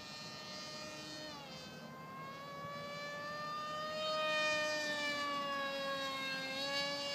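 Tuffwing 32 flying wing's 2200kv brushless electric motor and 6x5 propeller whining in flight overhead. The pitch drops about a second and a half in, then climbs slowly back up and grows louder around the middle.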